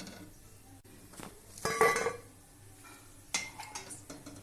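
Kitchen utensils clinking against cookware: a short ringing metal clink a little under two seconds in, then a quick clatter of knocks near the end.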